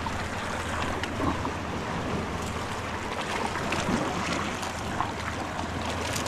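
Small sea waves washing and splashing over shoreline rocks in a steady rushing wash, with a few faint clicks.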